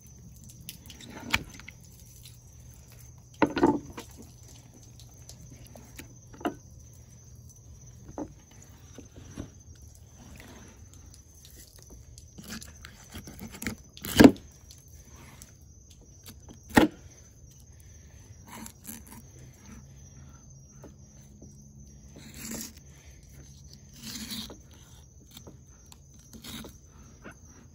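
Fillet knife and hands working a tripletail on a wooden cutting board: scattered knocks and scrapes, the two loudest a little past halfway. A steady high insect trill runs throughout.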